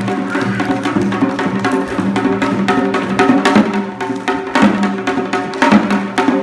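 Korean traditional music: held tones over a busy pattern of sharp drum strokes.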